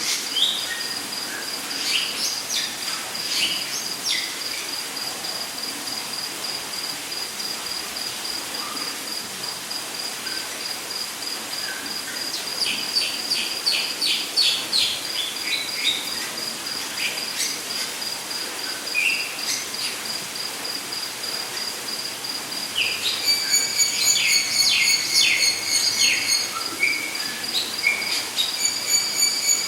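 Rainforest ambience: an insect trilling steadily at one high pitch throughout, with clusters of bird calls (quick chirps and short whistled sweeps) about halfway in and again near the end, over a steady even hiss.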